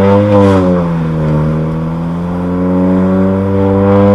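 Honda Accord 1.5-litre turbocharged four-cylinder running through a straight-through exhaust, with a PRL downpipe and front pipe and the resonator and muffler deleted, heard through a dash cam inside the cabin. The engine note peaks about half a second in, falls in pitch over the next second, then climbs slowly and steadily again under acceleration.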